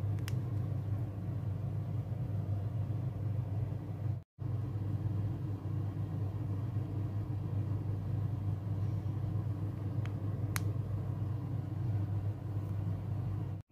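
A steady low hum, briefly cut out about four seconds in, with faint clicks near the start and about ten and a half seconds in.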